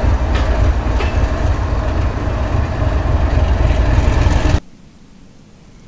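A GE 4,500-horsepower diesel-electric locomotive with its Evo diesel engine running loudly, a heavy low rumble with a steady hum over it and a few sharp clicks in the first second. The sound cuts off suddenly about four and a half seconds in.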